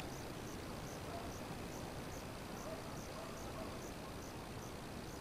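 Quiet outdoor background with a faint, high chirp repeating evenly about three times a second, and a single sharp click at the very start.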